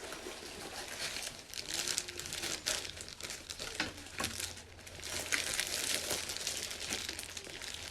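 Packaging wrapping being unwrapped and handled by hand: continuous crinkling and rustling with many small crackles.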